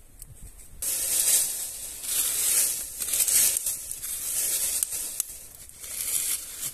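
Dry fallen leaves rustling and crunching as a hand scrapes through them among stones, in several uneven swells starting about a second in.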